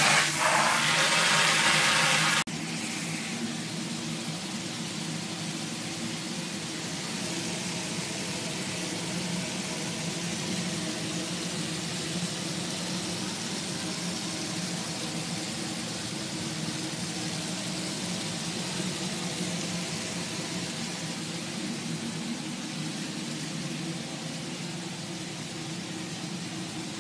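Water hissing from a hose spray nozzle, which cuts off suddenly a couple of seconds in. After it, a steady mechanical hum with several steady low tones runs on: the ventilation fans and air duct of the incubation room.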